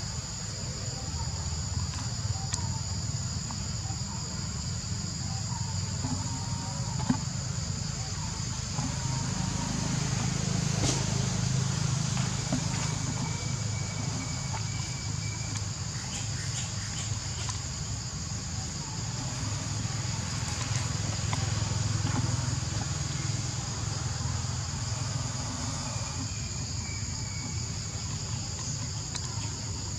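Steady insect chorus, a high continuous buzz that holds without a break, over a steady low rumble, with a few scattered clicks and rustles.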